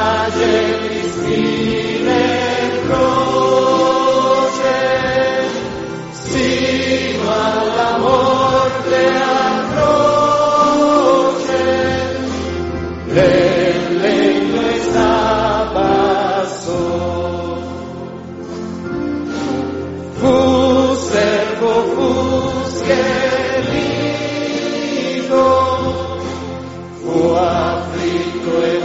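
A church congregation singing a hymn together in long held phrases, over a low sustained instrumental accompaniment.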